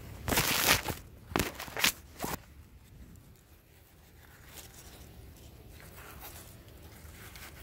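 Crunching and rustling of potting soil being pressed around a strawberry plant's roots by rubber-gloved fingers. There is one burst of about a second, then three short ones, all within the first two and a half seconds.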